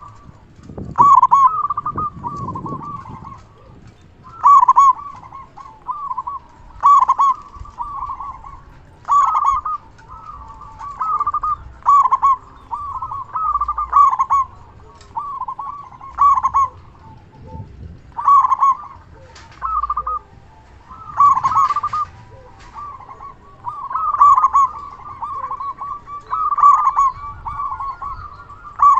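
Local zebra dove (perkutut) in full song, with a loud voice. It gives a short phrase of quick, clear rising coos, repeated every couple of seconds.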